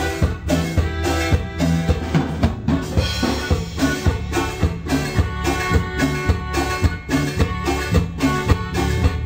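Instrumental band music with a drum kit keeping a steady beat of about two strokes a second over bass and melody instruments.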